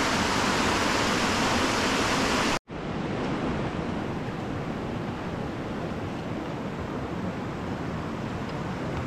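River rapids rushing over rocks, a loud steady rush that breaks off abruptly about two and a half seconds in. A quieter, steady rush of a shallow rocky stream follows.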